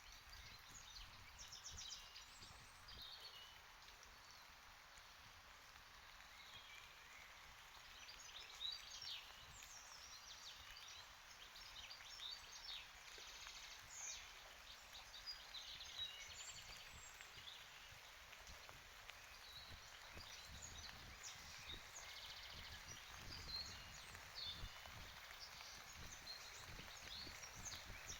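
Faint outdoor ambience in light rain: a soft steady hiss of rain, with many brief bird chirps scattered throughout and a low wind rumble.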